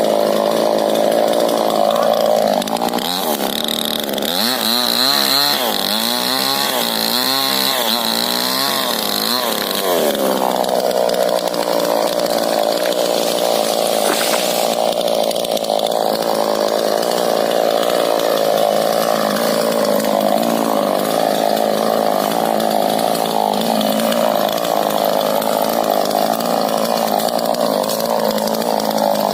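Two-stroke chainsaw running at high revs while cutting rubber-tree wood. Between about three and ten seconds in its pitch wavers up and down, then it settles back to a steady high-revving note.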